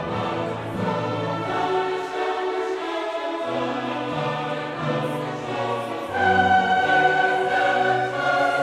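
Classical choral music: a choir singing long held notes, swelling louder with a high sustained note about six seconds in.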